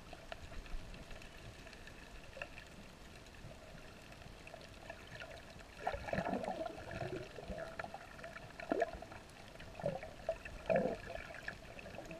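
Muffled water sound picked up underwater by a camera in its waterproof housing: a faint steady hiss, then irregular gurgles and sloshes from about halfway through.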